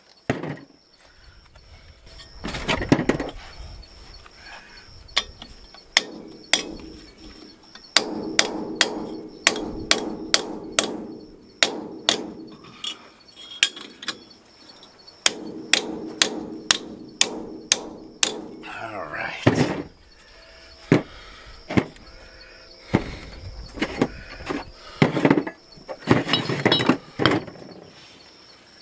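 Hand hammer striking steel tubing on an anvil in cold forging: many sharp metal blows, mostly in quick runs of several strikes, with a ringing tone hanging after them.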